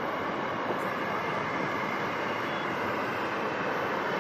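Aircraft jet engines on the airfield: a steady rushing noise with no clear pitch.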